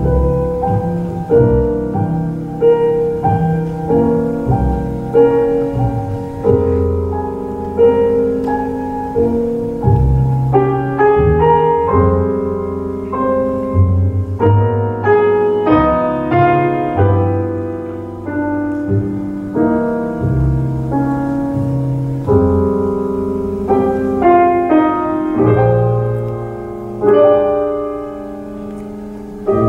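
Grand piano and plucked upright double bass playing a jazz standard together in a live duo, with the piano leading.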